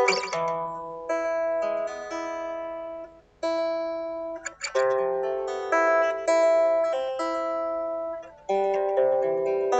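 Solo guitar played freestyle: picked notes and chords, each struck and left ringing, a new one roughly every half second to second, with short breaks between phrases.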